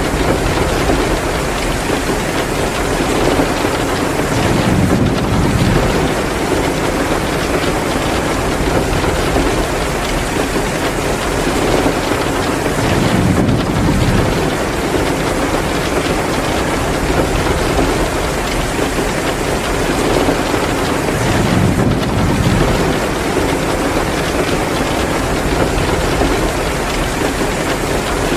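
Heavy downpour of rain, a dense steady hiss, swelling deeper and louder three times, about eight seconds apart.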